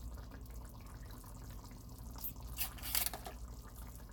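Lemon pepper sauce simmering in a stainless steel skillet, bubbling with small irregular pops and a few sharper clicks about two to three seconds in, over a low steady hum.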